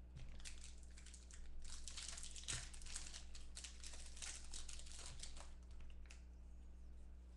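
Foil wrapper of a Bowman football card pack being torn open and crinkled by hand, with a dense crackle from about a second and a half in that fades out a little past the middle.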